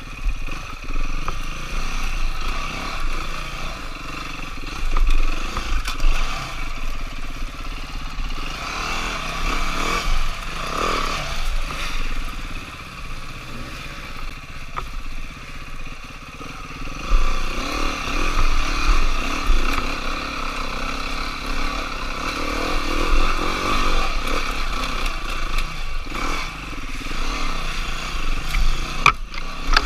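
Dirt bike engine running under load along a trail, its revs rising and falling with the throttle.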